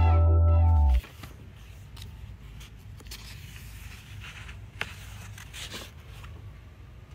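Music that cuts off abruptly about a second in, then soft paper scrapes, rustles and light clicks of scrapbook pages being handled.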